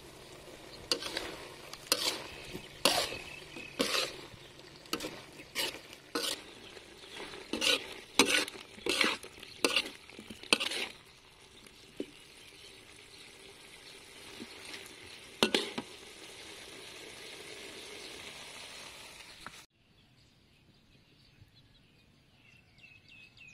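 Chicken pieces with lemongrass and galangal stir-fried in a metal wok: a utensil scrapes and knocks against the pan about once a second over a steady sizzle, the Coca-Cola sauce cooked down to almost dry. The stirring stops about halfway, leaving the sizzle alone, which cuts off suddenly near the end.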